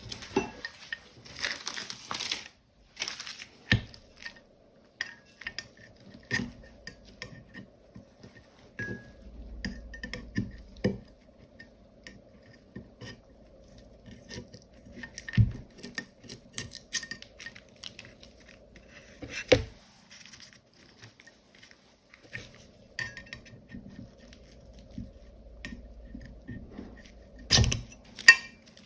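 Material being picked and pried out of the stem cavities of 3D-printed plastic keycaps: a busy run of light plastic clicks, ticks and scrapes, with a few sharper knocks scattered through it.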